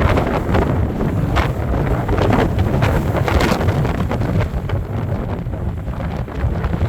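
Strong wind gusting across the microphone, a loud low rumble and buffeting that swells and eases, heaviest in the first half and easing somewhat near the end.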